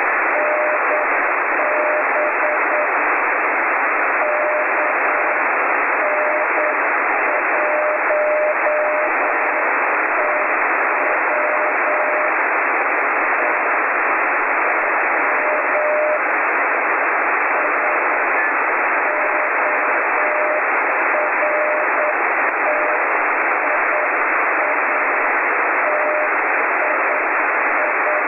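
Slow Morse code from the SV2AHT ten-metre amateur radio beacon, received on a Yaesu FT-817: a single-pitch CW tone keyed in dots and dashes at about 9 words per minute, weak and barely above the steady band hiss of the receiver.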